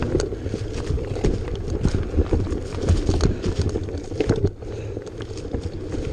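Riding over a rough, rocky off-road trail: a continuous low rumble with many sharp knocks and rattles, easing briefly about four and a half seconds in.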